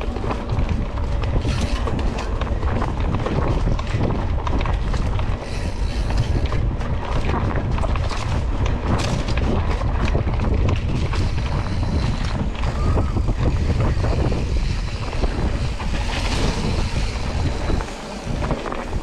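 Wind buffeting the microphone over the rumble and rattle of a mountain bike ridden fast on a dirt trail, with many small clicks and knocks from the bike and the ground.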